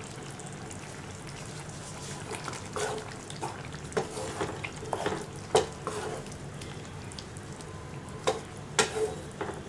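Thick bitter gourd gravy simmering in a pan, with irregular short pops and knocks as a spoon stirs through it, over a steady low hum.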